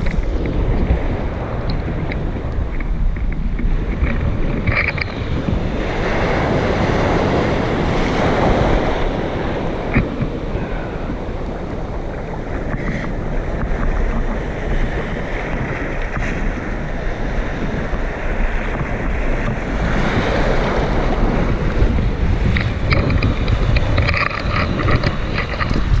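Caribbean surf washing in over shallow sand right at the microphone, with wind buffeting the mic. The wash swells up about six seconds in and again about twenty seconds in.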